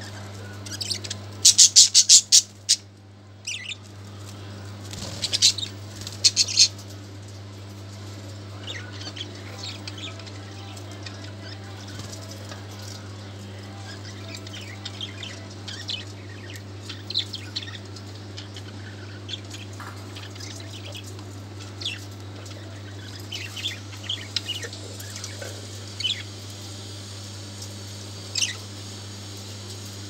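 A cage of budgerigars chirping and squawking, loudest in two short bursts of rapid calls in the first seven seconds, then scattered short chirps. A steady low hum runs underneath.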